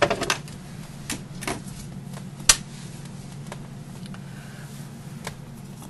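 Cardstock and paper pieces handled on a tabletop: scattered light taps and clicks, one sharper click about two and a half seconds in, over a steady low hum.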